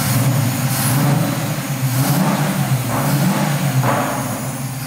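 Fuel-injected 347 ci stroker Ford small-block V8 running and being revved by hand at the throttle, its pitch and loudness rising and falling in repeated short blips about once a second.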